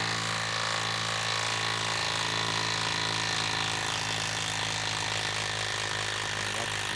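Milwaukee M12 Fuel stubby 1/2-inch impact wrench hammering steadily as it backs a long threaded bolt out of a wood round. It runs smoothly at an even speed on a 4 amp-hour battery.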